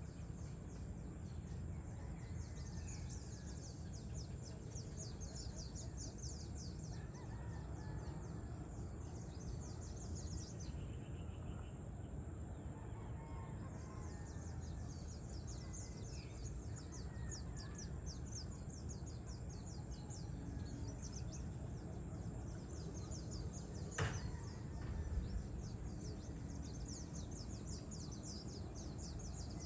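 Outdoor evening ambience: a dense, fast high chirping with scattered distant bird calls over a steady low rumble. One sharp click comes about 24 seconds in.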